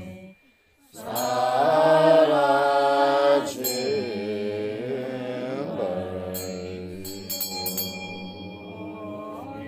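Background music: a chanted mantra sung as a slow melody over a steady low drone, breaking off briefly into near silence about half a second in before resuming.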